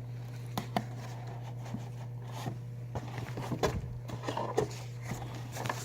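Scattered light clicks, knocks and rustles of handling, busiest around the middle, over a steady low hum.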